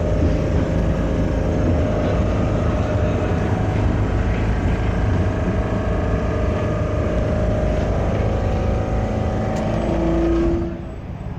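Tram running along the track, heard from inside the car: a steady low rumble with a faint whine, dropping away near the end.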